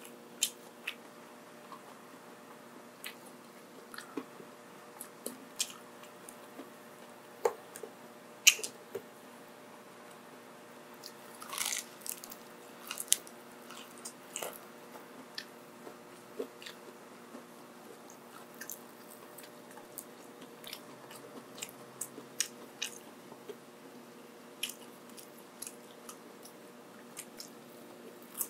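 Close-miked eating: chewing and biting with sharp, crunchy clicks scattered throughout and a denser burst of crunching about twelve seconds in. A faint steady hum sits underneath.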